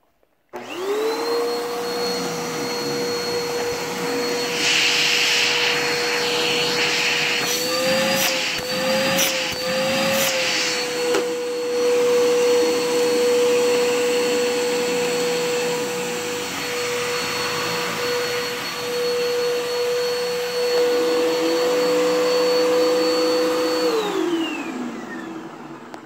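Bissell PowerForce Helix upright vacuum cleaner switched on and running with a steady motor whine. The pitch wavers briefly partway through. Near the end it is switched off and the whine falls away as the motor winds down.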